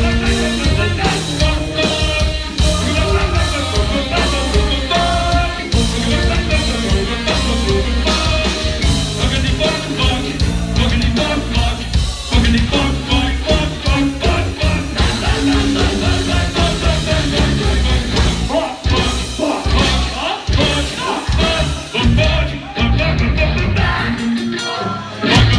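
Live heavy metal band playing loud: distorted electric guitars and pounding drums under sung vocals. The music thins out briefly near the end, then the full band comes back in.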